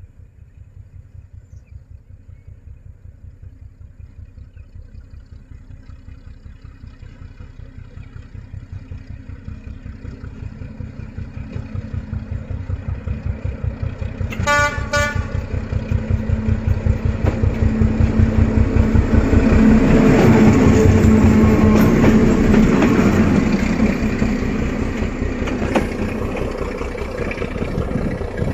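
Pair of diesel locomotives, led by a D12E, working up a grade, their engines throbbing in a rapid, even beat that grows louder as they approach. About halfway through, the horn gives two short toots.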